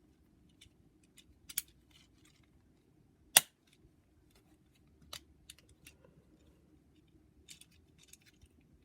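Hard plastic parts of a small Transformers Ratchet action figure clicking as they are moved and pegged into place, with scattered light clicks and one sharp snap about three and a half seconds in.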